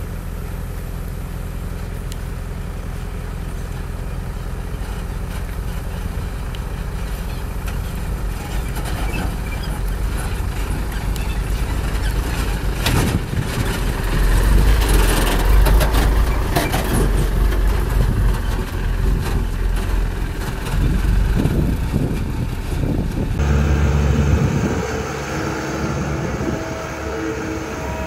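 Hino six-wheel dump truck's diesel engine running as the truck drives slowly over loose dirt, loudest as it passes close about halfway through. Near the end the sound changes to an excavator's engine and hydraulics working as it loads soil into the truck.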